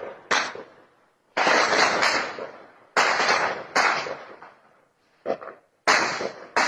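Gunfire: a series of about seven loud shots, roughly one a second and some in quick pairs, each ringing out with a long echo.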